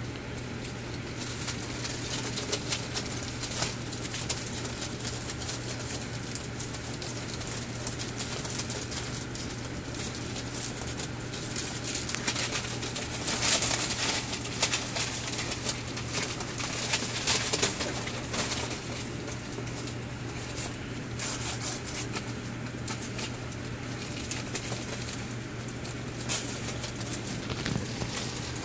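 Pembroke Welsh Corgi puppies scuffling and padding about on newspaper: irregular crinkling and rustling of paper with small scratches and taps, busiest about halfway through, over a steady low hum.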